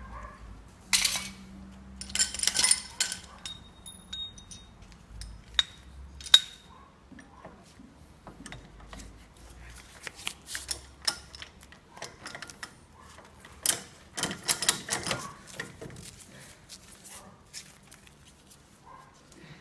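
Irregular metal clinks and short scraping flurries as a steel chisel is worked against the remains of the old centre support bearing on a Land Rover Discovery 3 propeller shaft held in a vise, with a few sharper clicks among them.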